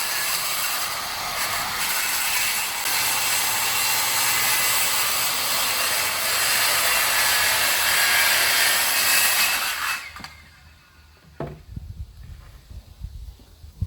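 Power saw cutting through wood in one continuous cut lasting about ten seconds, then stopping suddenly. A single sharp click follows.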